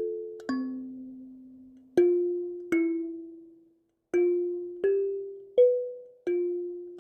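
A slow melody of single struck or plucked notes on a bell-like tuned instrument, about seven notes, each ringing out and fading away before the next.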